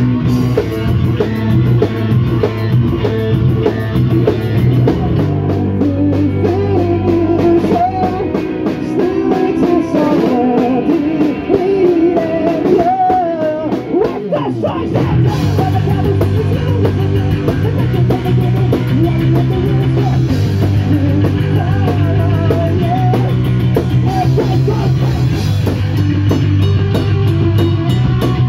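Live punk rock band playing: guitar, bass and drum kit with sung vocals. About eight seconds in the low end thins out while the vocal line carries, and the full band comes back in about fifteen seconds in.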